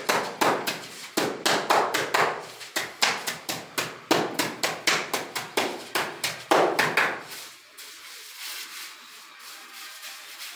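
A mason's trowel patting and slapping down damp sand-and-cement screed mortar in quick taps, about three a second, to settle it before it is screeded level. The tapping stops about three seconds before the end.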